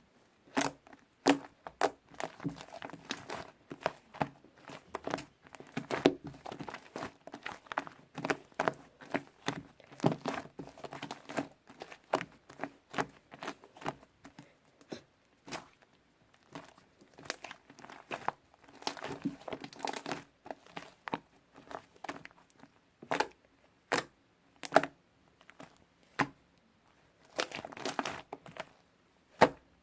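Fluffy clay slime being squished, stretched and pressed by hand, giving irregular crackling clicks and small pops, busier in a few stretches.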